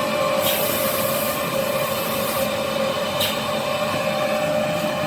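Kitchen-towel roll saw-cutting production machine running with a steady mechanical whine. A high hiss starts about half a second in and stops at about two and a half seconds, and a sharp click comes a little after three seconds.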